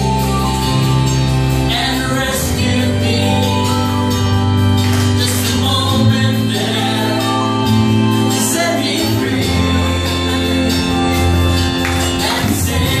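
A live church band playing an upbeat gospel song, with a singer, guitars and a drum kit, amplified through the hall's speakers.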